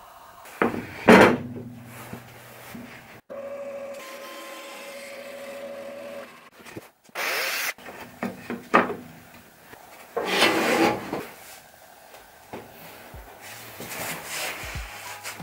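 Wooden jig parts being slid and rubbed across a bandsaw's melamine-faced plywood table: scraping and sliding of the runner in its slot and of a plywood panel over the table, with short knocks. The loudest scrape comes about a second in and another around two-thirds of the way through.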